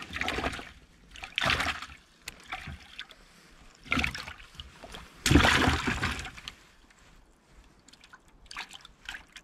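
Short bursts of splashing and rustling as a freshly caught bluegill is handled and unhooked. The longest and loudest splash, a little past halfway, is the fish going into a bucket of water and thrashing.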